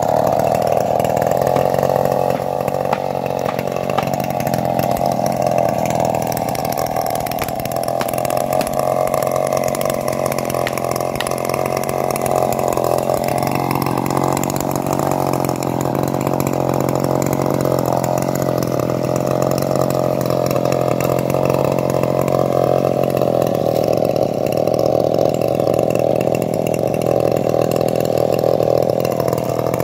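STIHL two-stroke chainsaw running steadily at high revs, cutting into the base of a tree trunk.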